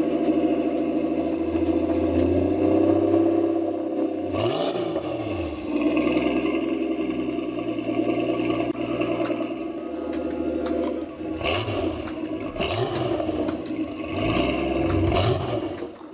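Sports car engine running and being revved, with short throttle blips that rise and fall in pitch about four seconds in and several more in quick succession near the end.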